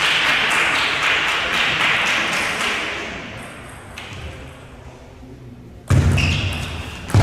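Clapping in a sports hall dies away over the first three seconds. It is followed by a quieter stretch with the light tap of a table tennis ball, and a sudden loud burst of sound near the end as a rally gets under way.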